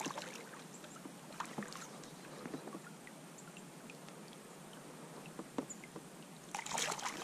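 A hooked bass splashing and thrashing at the surface as it is reeled to the side of the kayak, with light water sloshing and scattered small clicks. A louder splash comes near the end.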